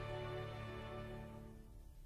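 The final held chord of a slow song dying away, its higher notes fading out first, about a second and a half in.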